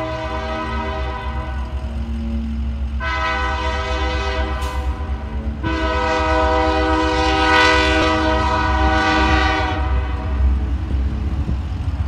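Union Pacific SD70M locomotive's multi-note air horn blowing long blasts for a grade crossing: one ending about two seconds in, then after a short pause a long blast with a brief break in the middle, stopping about ten seconds in. A steady low rumble lies underneath throughout.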